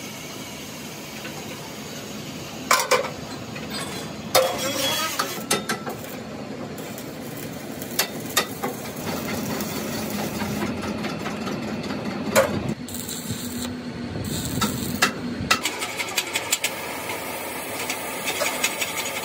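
Metal-repair work on a steel wheel rim: sharp single hammer blows on metal, then a steady buzzing hum of arc welding for about five seconds that cuts off abruptly. Near the end come quick light taps on the rim.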